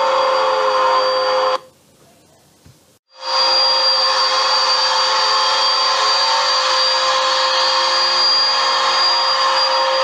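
Bagless upright vacuum cleaner running on carpet: a steady hum and whine over an even rush of air. About a second and a half in it cuts out abruptly for about a second and a half, then comes back at full strength.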